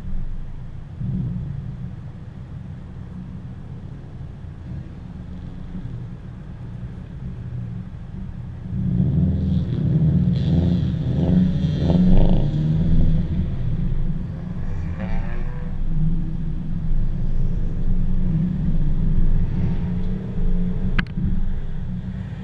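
Wind buffeting the microphone as a low rumble, with car engines under it. From about nine seconds in, engines rev and accelerate, rising in pitch. There is one sharp click near the end.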